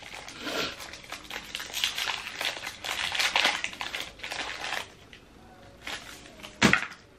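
Candy bar wrapper crinkling and crackling as it is handled and opened, for about five seconds. Then one sharp snap near the end, as a piece of the chocolate bar is broken off.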